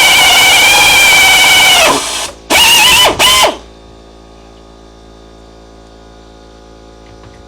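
Drill running flat out, drilling a rivet hole, with a high whine and hiss; it winds down about two seconds in, then is triggered in two short blips and stops. After that an air compressor hums steadily in the background.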